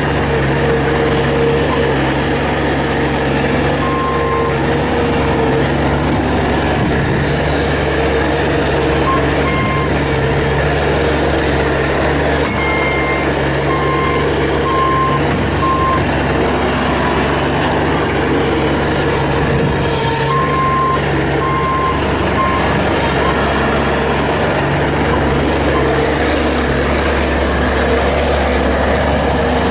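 Bobcat S450 skid steer loader's 49-horsepower diesel engine running steadily under operation, with its backup alarm beeping in short runs several times as the machine reverses.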